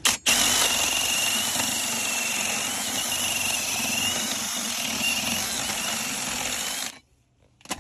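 Milwaukee cordless power tool running under load, drilling out a hole in a suspension part: a rough grinding hiss with a wavering high whine. A short burst at the start, then one steady run of about seven seconds that cuts off suddenly.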